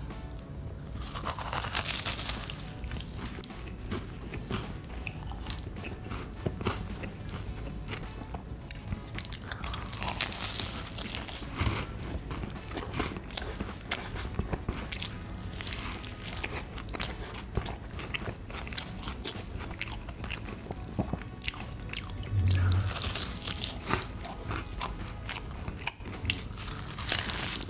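A person biting and chewing crunchy food close to the microphone, with a run of small crunches and a few louder crunching bites scattered through.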